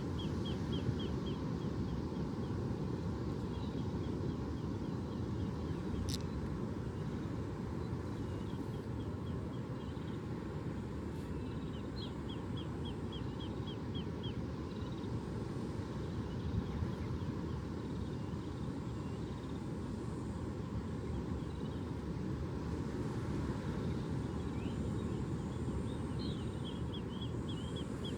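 A small bird singing a rapid trill of short, repeated high notes, about a second long, several times over a steady low rushing background noise.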